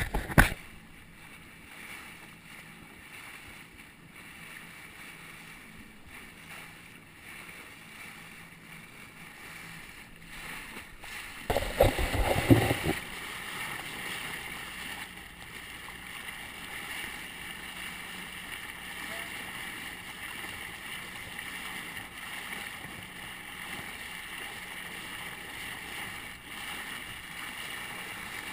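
Water rushing and splashing along the side of a moving rubber boat, picked up by a camera mounted low near the waterline. There is a knock right at the start and a loud rumbling thump, like a wave slap or a gust on the microphone, about twelve seconds in. After the thump the water hiss is steadier and louder.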